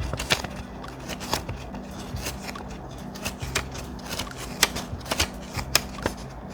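Thick paper being handled and worked for a scrapbook journal page: rustling with many irregular, crisp clicks and ticks.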